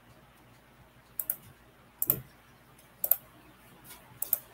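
Computer mouse clicking: sharp clicks in quick pairs, about one pair a second, starting about a second in.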